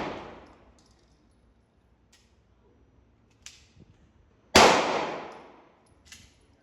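A single gunshot from a Draco, an AK-pattern 7.62×39 pistol, about four and a half seconds in, its echo ringing off for over a second. The tail of the previous shot dies away at the start, and a few faint sharp clicks fall between the shots.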